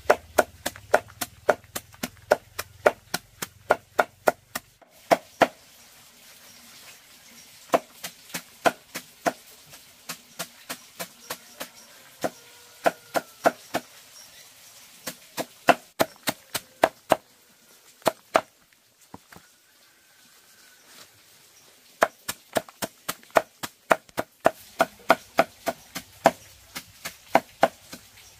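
Knife chopping on a board in a steady run of sharp strokes, about two or three a second, in bouts broken by short pauses: chopping feed for pigs.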